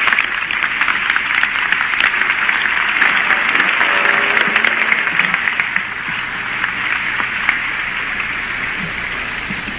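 Audience applauding, a dense patter of many hands. It thins out and fades over the last few seconds, leaving the steady hiss of an old recording.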